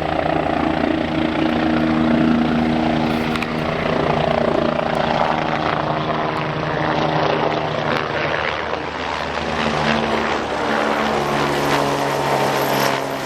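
Helicopter flying overhead: a steady engine and rotor drone with a chopping beat, its pitch shifting lower about eleven seconds in.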